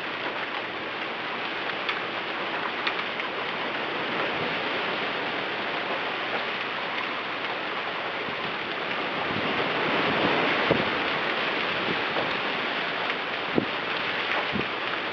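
Rain and wind in a storm: a steady hiss that swells about ten seconds in, with a few sharp taps of drops striking.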